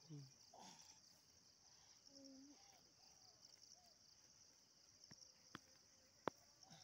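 Near silence with a faint, steady, high insect chirring, like crickets. A few faint short calls come about two seconds in, and two sharp clicks near the end.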